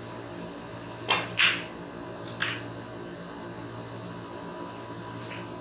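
A snooker shot: sharp clicks of the cue tip on the cue ball and of ball striking ball, two loud ones close together about a second in, a third about a second later, and a faint click near the end.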